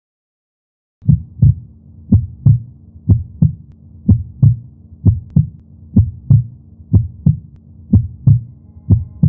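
A slow heartbeat sound: paired low thumps, lub-dub, about once a second, over a faint low drone. It starts about a second in after silence.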